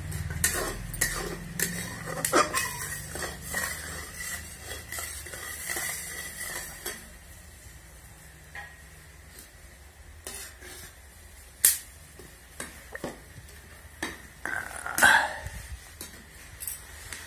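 Metal kitchen utensils clattering and clinking: a spoon knocking and scraping against pots and pans. The knocks are busy at first, then sparser, with a single sharp clank past the middle and another a few seconds later.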